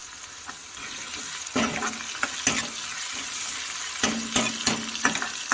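Sliced onions sizzling in hot oil in a kadhai, with a steady hiss. A steel ladle stirs them, scraping and knocking against the pan in clusters of sharp clicks about a second and a half in and again about four seconds in.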